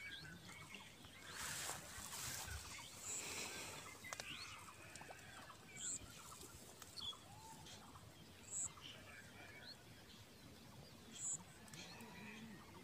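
Faint birdsong: scattered small chirps, with a short, high call repeating about every two and a half seconds and a brief hiss about two seconds in.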